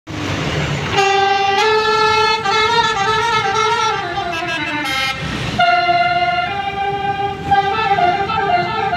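Telolet-style multi-tone bus air horn (Basuri type) playing a melody in stepped notes. It starts about a second in, after a short rush of noise, and a second short rush of noise breaks the tune about five seconds in.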